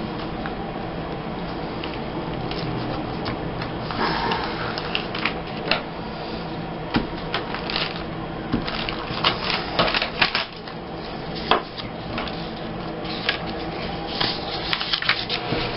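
Paper being handled while a scrapbook page is laid out: rustling with scattered short taps and clicks, over a steady low hum.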